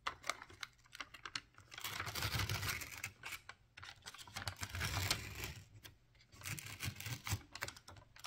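Foil lid being peeled back from a plastic instant rice-noodle tray: the film crackles and crinkles in three main bursts, with scattered sharp clicks between.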